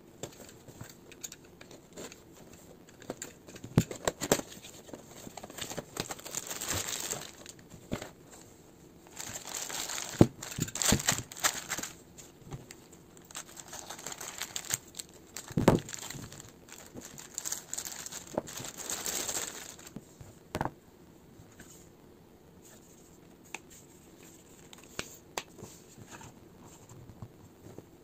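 A figure's cardboard box opened with a utility knife, then plastic packaging bags crinkled and torn open, in bursts of rustling with sharp clicks and knocks. Near the end only light handling ticks are left.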